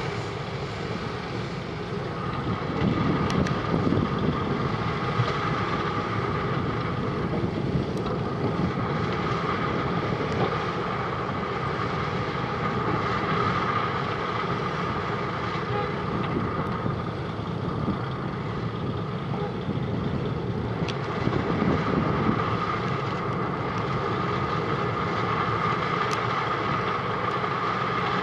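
Wirtgen W210i cold milling machine running steadily: a continuous heavy diesel and milling-drum rumble with a steady whine over it, the whine stronger near the start and again in the last third.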